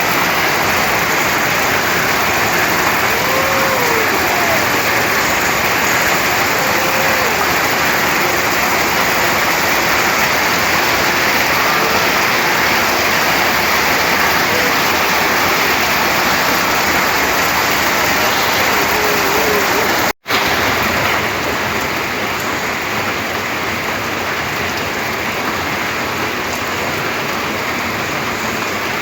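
Heavy rain falling in a steady downpour. The sound drops out completely for a split second about twenty seconds in, then carries on a little quieter.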